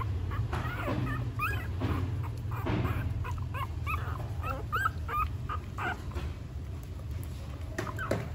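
Newborn puppies squeaking and whimpering while they nurse: many short, high squeaks scattered through, with a lull late on. A steady low hum runs underneath.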